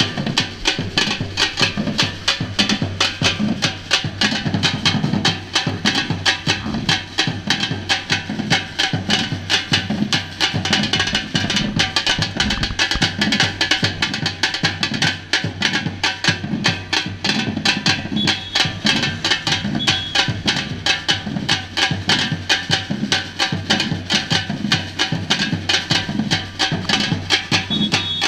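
Samba-reggae percussion band playing a steady, dense drum rhythm: deep drum hits under fast, sharp strokes.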